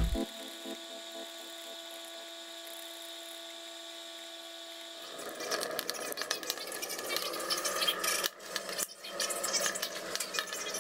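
A steady hum of several held tones for about five seconds, then irregular crackling and popping of wood burning in a small brick stove.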